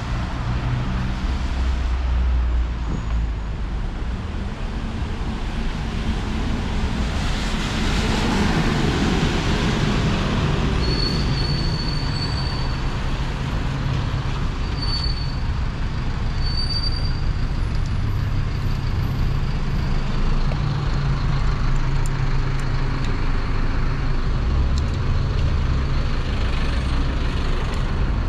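Street traffic, dominated by a city bus's diesel engine running steadily close by. A vehicle passes about eight seconds in, and a few short high squeaks come in the middle.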